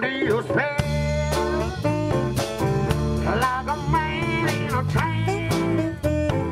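Background music: a song with guitar and drums over a steady beat.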